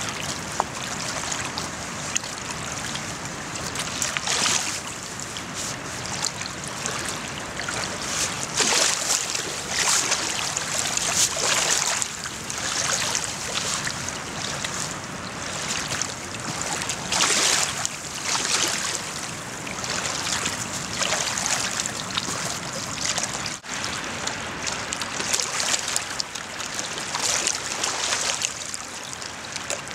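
Water washing against a rocky shore: a steady watery hiss with irregular louder surges every second or two.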